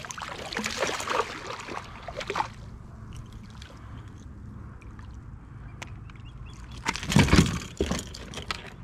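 Water splashing and sloshing at the side of a kayak as a hooked fish is brought in: a stretch of splashing in the first couple of seconds, then a louder splash with a thump near the end.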